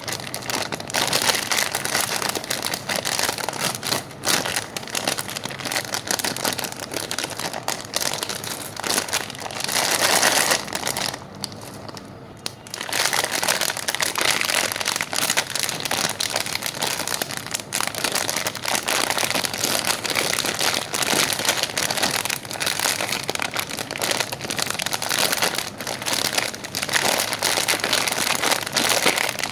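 Plastic candy packaging crinkling and rustling as it is handled, a dense run of small crackles that eases off for a moment about eleven seconds in.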